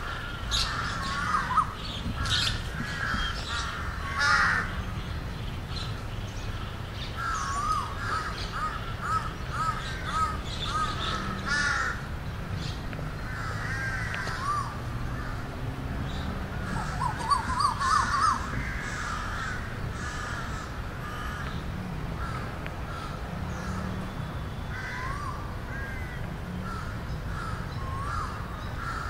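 A flock of birds calling together, many short rising and falling notes overlapping without a break, over a steady low rumble.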